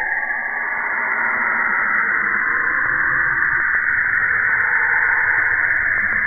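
Saturn's radio emissions picked up by a NASA spacecraft and converted to audio: a steady, loud, hissing wash of noise, brightest in the high-middle range. A low rumble rises under it from about halfway through.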